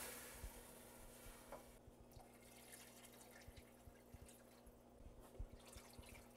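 Faint sound of water poured from a glass measuring cup into a pot of sautéed vegetables: the sizzle of the frying vegetables dies away in the first moments as the water goes in, leaving a quiet trickle with scattered small drips.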